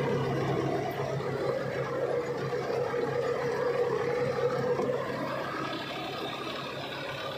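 Massey Ferguson 246 DynaTrack tractor's three-cylinder diesel engine running steadily under load, driving a rotavator through wet, heavy soil; the engine note eases a little after about five seconds.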